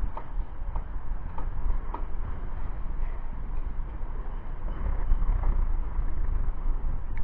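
Steady low rumble of wind on the microphone, with a few faint light ticks in the first two seconds.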